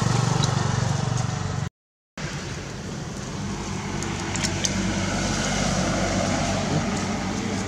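Steady hum of a motor vehicle's engine running nearby, cutting out completely for about half a second around two seconds in, then continuing with a few faint clicks.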